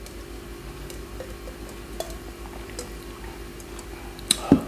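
A glass of iced cocktail being handled: a few faint light clicks, then two sharp clinks near the end as the big ice cube knocks against the glass. A faint steady hum underneath.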